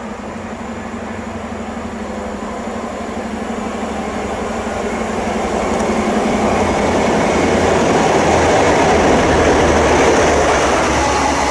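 A GWR High Speed Train with Class 43 diesel power cars running past as it picks up speed. The engine and wheel noise grow steadily louder for about seven seconds, then hold loud.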